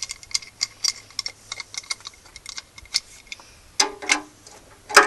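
Ratchet wrench clicking in quick, uneven ticks as a fitting on the engine is worked loose, then two louder metal clanks near the end.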